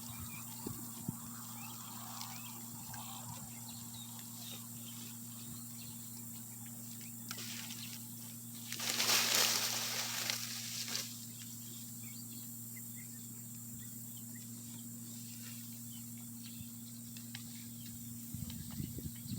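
Goats browsing on a tree: scattered crackles and rustles of leaves and twigs being pulled and chewed, with a louder rustle of shaken branches about nine seconds in. A low steady hum runs underneath.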